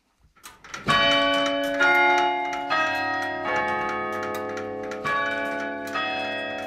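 Church tower clock, dated 1890, striking its quarter-hour chime on the bells. The bell notes come about one a second, each ringing on into the next, with a slightly longer pause after the fourth. The clock is restored and chiming again.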